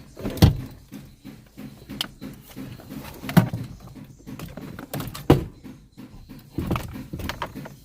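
Irregular knocks and clunks, four of them louder than the rest, as a heavy steering column is manoeuvred up under the dashboard and hooked into place.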